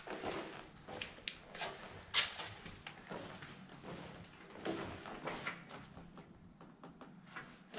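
Footsteps scuffing along a tunnel floor, uneven, about two a second, with a louder knock about two seconds in.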